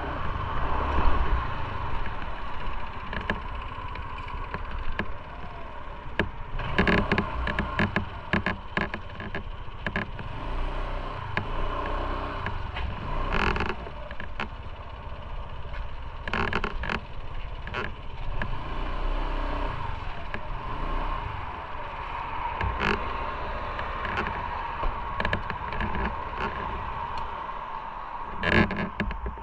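Steady road traffic noise, with scattered sharp clicks and knocks close to the microphone.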